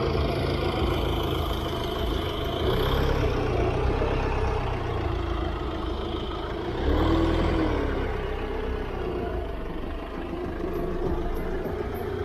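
Engine of a Fiat Ducato box van running as the van creeps past at walking pace, a steady low rumble with a brief rise and fall in engine pitch about halfway through.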